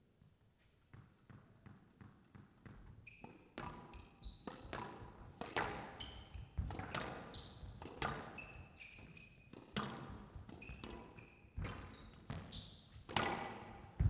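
Squash rally: the ball smacking off the rackets and the court walls again and again at an irregular pace, with short high squeaks of the players' shoes on the court floor.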